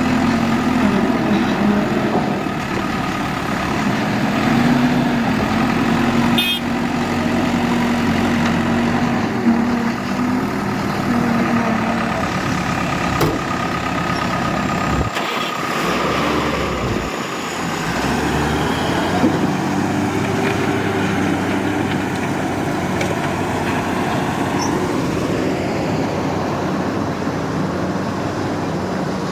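Heavy diesel machinery running steadily, a backhoe loader's engine with trucks nearby. A steady engine drone holds through the first half, then shifts in pitch and weight around the middle.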